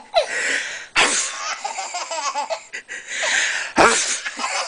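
A person imitating a dog's sneeze: a few short, sudden, breathy fake sneezes, with laughter breaking out between them.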